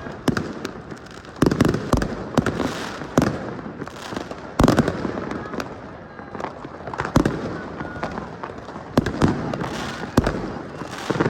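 Fireworks bursting overhead: a rapid run of sharp bangs, several a second at times, each echoing, over continuous crackle.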